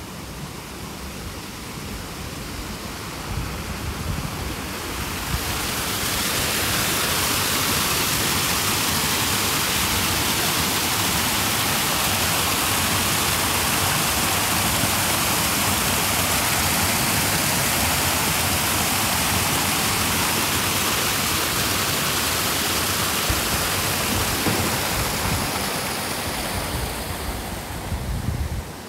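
Small garden waterfall splashing over rocks into a pond, a steady rush of falling water. It swells about five seconds in as it draws near, eases off near the end, then drops away abruptly.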